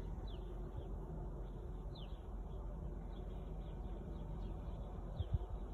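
A few faint high bird chirps, each a quick falling note, scattered over steady low outdoor background noise, with a couple of low thumps near the end.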